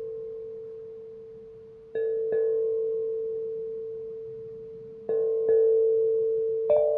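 Soft meditation music of struck bell tones, singing-bowl-like, that ring on and slowly fade. The strikes come in pairs a fraction of a second apart, about every three seconds.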